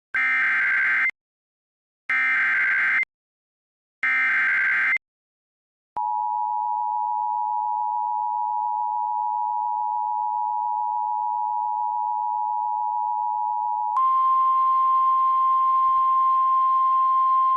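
Emergency Alert System tones: three one-second bursts of the buzzy SAME digital header, then a steady two-tone attention signal. About 14 s in it switches to a single slightly higher steady tone over radio hiss, the weather radio's warning alert tone that leads into the next severe thunderstorm warning.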